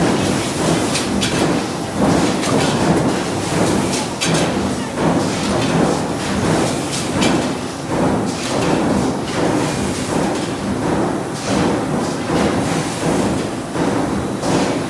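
Stamping-press line running on a factory floor: a steady machinery rumble with repeated heavy thumps and metal knocks about once or twice a second.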